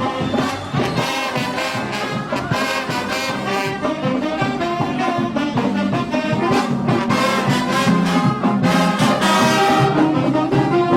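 Music: brass instruments playing sustained lines over percussion.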